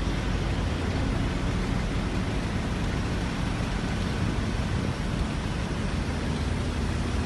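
Steady road noise of a moving car: engine and tyres running evenly, with most of the sound at the low end.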